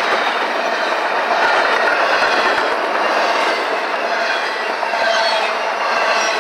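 Double-stack container well cars of a freight train rolling past close by: the steady, loud noise of steel wheels running on the rails.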